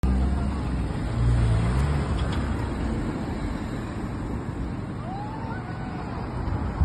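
Road traffic: cars driving past close by, a steady rumble of engines and tyres on tarmac, loudest about a second in.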